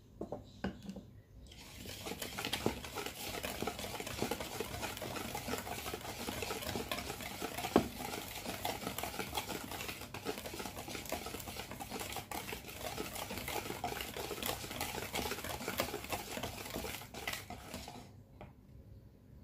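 Wire balloon whisk beating puto batter in a mixing bowl: a fast, steady swish and clatter of the wires against the bowl, with one sharper knock about eight seconds in. The whisking stops shortly before the end.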